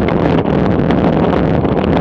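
Heavy wind buffeting on a bike-mounted camera's microphone at riding speed, with steady road rumble from the tyres on rough asphalt.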